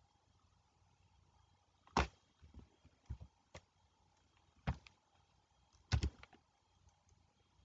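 About eight sharp, irregularly spaced clicks from a computer mouse and keyboard. The loudest come about two seconds in, near the middle, and as a quick pair about six seconds in.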